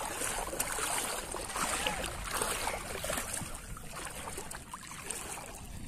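Shallow floodwater sloshing and trickling as it is stirred, over a steady outdoor hiss.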